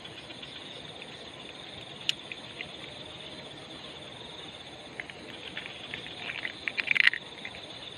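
Steady chirring of night insects over a faint hiss. Scattered short clicks and crackles come about two seconds in and again from about five seconds, building to a loud cluster near seven seconds.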